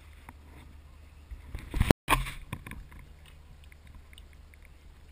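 Water splashing and lapping close to the microphone as an outrigger canoe is paddled, louder just before and after a brief dropout near two seconds in, then quieter with light drips and knocks of paddles.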